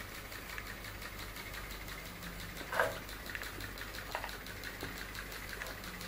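Homemade putt-putt (pop-pop) steam boat with a soda-can boiler and fridge-condenser pipes, heated by a candle: a faint, fast, even ticking as the boiler pulses and drives the boat. A short falling blip comes about three seconds in.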